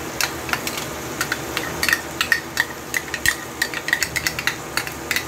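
Metal spoon clinking and scraping against a stainless steel pan and utensils as mayonnaise is spooned out of a cup into the pan: a rapid, irregular run of light clinks, many with a brief ringing tone, over a faint steady hiss.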